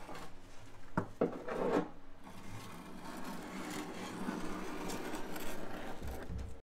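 Rubbing and scraping of a thin plastic template sheet being worked by a gloved hand against a fiberglass tank wall, with a few light knocks and louder scrapes about a second in.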